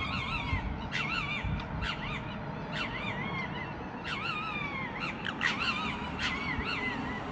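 Red foxes squabbling: short, wavering, high-pitched cries with a sharp start, roughly one a second and coming faster in the second half.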